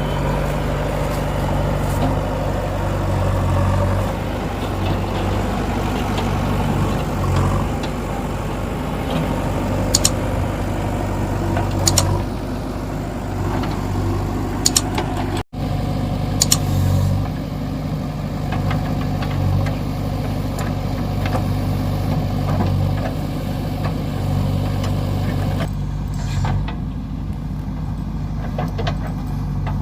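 JCB 3DX backhoe loader's diesel engine running steadily, its note swelling now and then under load, with a few sharp metallic clanks from the working machine.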